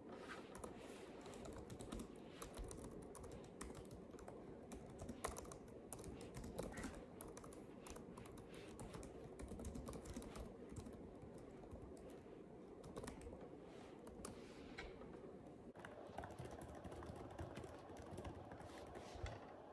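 Fingers typing on a laptop keyboard: a quiet, uneven run of quick key clicks.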